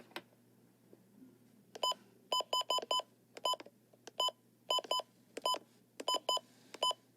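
Short electronic button beeps, about a dozen identical high beeps in quick irregular groups starting about two seconds in, like keys being pressed on a receiver's keypad.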